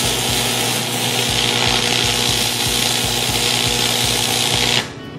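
Stick (arc) welding arc crackling and hissing loudly, then cutting off abruptly near the end. The voltage is set too high or the rod is too small for the job, so the rod fails to penetrate and metal spatters everywhere.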